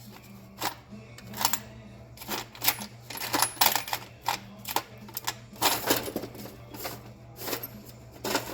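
Small metal bolts and screws clattering and clicking as a hand rummages through a junk drawer of hardware, with irregular clinks, some in quick clusters.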